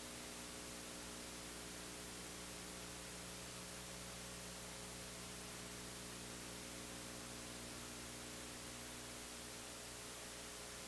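Steady hiss with a low mains hum, the noise floor of an old film-to-video transfer, with no game or crowd sounds heard.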